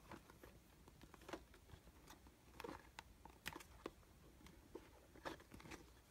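Faint, irregular taps and scuffs of fingers handling a cardboard box, turning it over in the hands.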